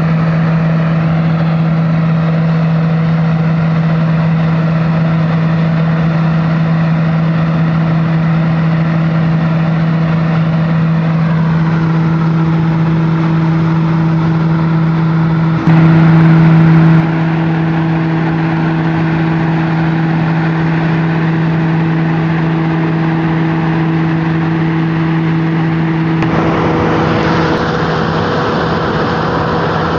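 Weiss McNair V sweeper, a nut-harvest sweeper, running as it sweeps nuts into a windrow, its engine making a loud, steady hum. The sound briefly swells louder a little past halfway, and turns hissier near the end.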